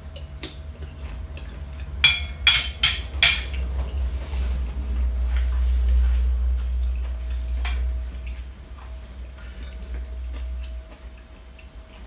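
Mealtime handling noises at a table: a few light clicks, then a quick run of four sharp clicks or crinkles about two seconds in, followed by a low muffled rumble lasting several seconds, over a faint steady hum.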